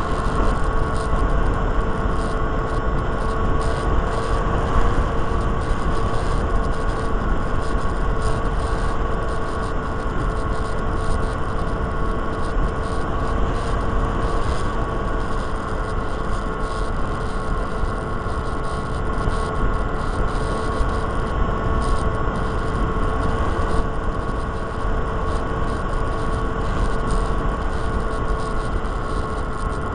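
Electric motor and propeller of a Micro Interceptor RC plane whining at a steady pitch, heard through its on-board camera, with wind rumbling over the microphone in 11 mph wind.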